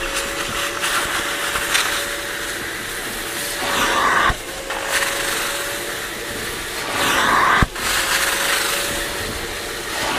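Kärcher Puzzi 8/1C spray extractor running with a steady whine and suction hiss as its upholstery nozzle is drawn over a cloth seat. There are two louder passes, about four and seven and a half seconds in, each ending in a sharp click.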